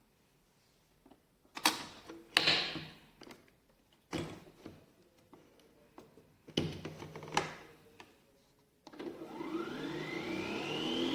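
Plastic clicks and knocks of a Nespresso Vertuo Pop capsule machine being handled. About nine seconds in, its motor starts and spins the capsule up with a rising whine as the brew begins.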